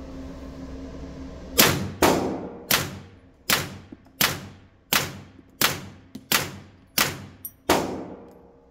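Ten suppressed 9mm pistol shots through a YHM R45 suppressor with subsonic Hush ammunition, fired at an even pace about 0.7 seconds apart. Each shot rings briefly off the walls of an indoor range.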